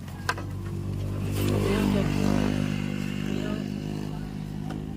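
A vehicle engine running steadily and building slightly about a second in, with a sharp click near the start.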